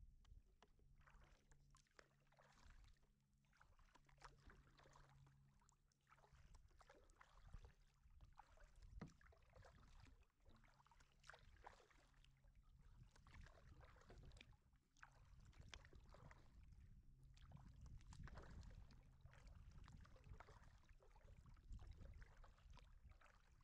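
Kayak paddle strokes in the water, faint: a run of small splashes and drips as the blades dip and lift.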